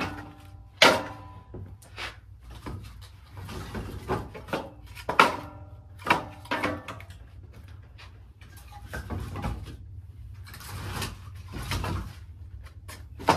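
Split firewood knocking and clacking as pieces are dropped one after another into a firewood bundler: about a dozen irregular knocks, several ringing briefly, with softer shuffling between them.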